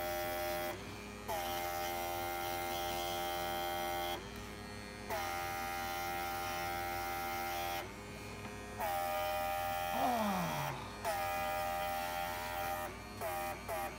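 Small airbrush compressor motor buzzing steadily while the airbrush blows air onto wet acrylic paint. The motor stops briefly about three times, and near the end it starts and stops in several quick short spurts.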